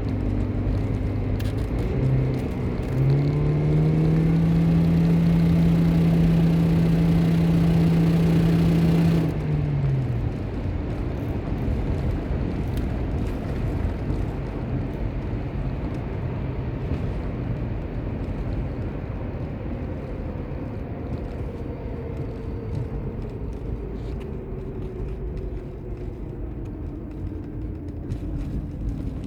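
2007 Toyota Prius's 1.5-litre four-cylinder engine under hard acceleration: its revs step up about two seconds in and hold steady and loud, with the fluttering from the engine bay that the owner says sounds like an exhaust leak, though a new manifold-to-catalytic-converter donut gasket has not cured it. About nine seconds in the engine drops away, leaving steady road noise and a faint whine that falls slowly in pitch near the end.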